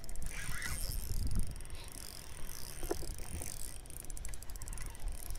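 Spinning reel clicking as the angler plays a hooked smallmouth bass, the clicks densest right at the start, over a steady low rumble.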